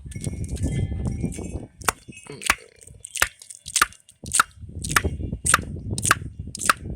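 A series of sharp clicks, about nine evenly spaced roughly every half-second to two-thirds of a second, starting about two seconds in, over a low rumbling noise.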